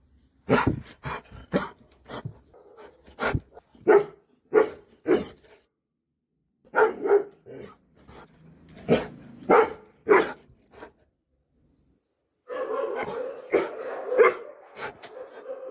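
A brown-and-tan Doberman pinscher barking repeatedly, about a dozen short separate barks. After a brief pause, a denser, continuous stretch of sound follows near the end.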